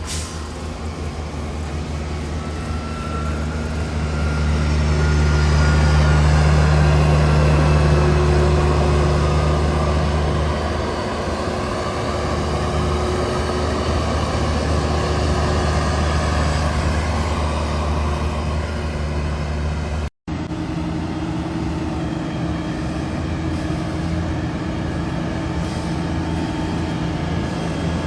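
Diesel engines of heavy farm machinery running steadily, growing louder for several seconds about five seconds in; an abrupt cut about twenty seconds in switches to another engine running.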